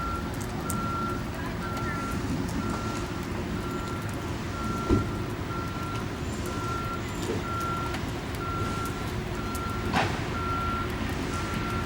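Vehicle reversing alarm beeping at an even pace, about three beeps every two seconds, over a steady low engine rumble. Two short knocks come about five and ten seconds in.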